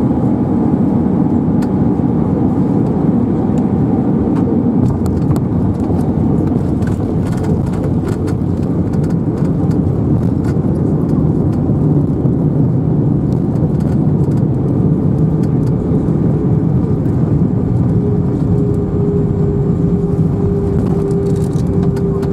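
Cabin noise of an Airbus A320 during touchdown and landing rollout: steady, loud engine and airflow noise with the rumble of the wheels on the runway. Light rattles and knocks come in the first half, and a steady whine comes in during the second half as the aircraft slows.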